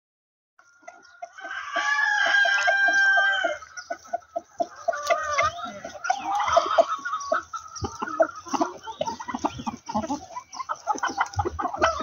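A flock of chickens clucking while they feed on a pile of altari radish leaves, with a rooster crowing once, held for about two seconds, near the start.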